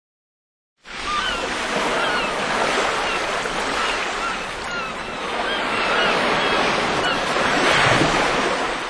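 Ocean surf sound effect: a steady rush of waves that swells and eases, with short high chirps repeating over it. It fades in about a second in and starts fading out near the end.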